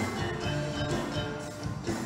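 Campursari-style band music: kendang hand drums, keyboard and electric guitars playing over a steady beat.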